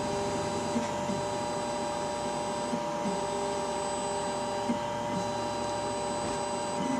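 Tiertime UP Mini 2 enclosed 3D printer running as it starts a print job, giving a steady whine of several tones.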